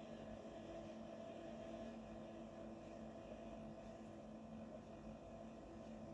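Faint steady hum over a low hiss, with no sudden sounds: background room tone.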